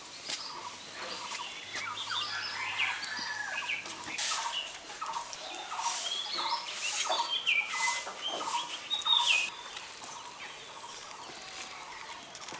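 Birds chirping and calling, many short overlapping calls, louder and busier in the middle.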